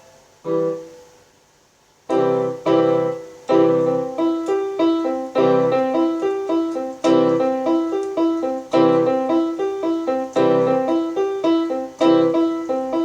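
Electronic home keyboard played with a piano sound: one chord just after the start, then after a short pause a steady run of low chords with quicker notes picked out above them.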